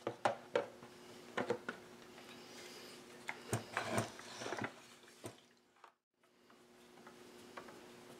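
Handling noises from a Husqvarna 572 XP chainsaw body and its plastic and metal parts on a wooden workbench: scattered clicks and knocks, busiest a little past the middle, over a faint steady hum.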